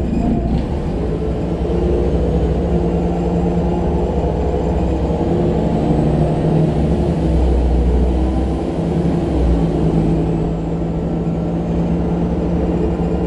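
Jelcz M121MB city bus driving, heard from inside the passenger cabin: a steady low engine drone and rumble that swells a little in the middle, with a faint high whine rising and then falling.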